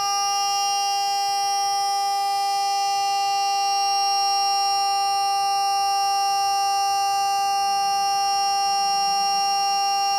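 A buzzer-like tone held unbroken at one unchanging pitch, rich in overtones.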